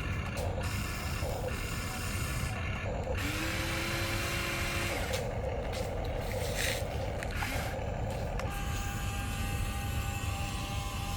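Electric motors and gearing of a Huina remote-control excavator running, their whine changing pitch every second or two as different movements are worked.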